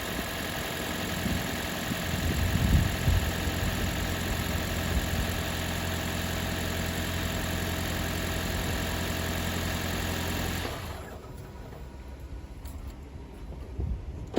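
Toyota Yaris engine idling steadily after an oil refill, run briefly so the new oil fills the oil filter. It is switched off a little over ten seconds in, after which only faint clicks remain.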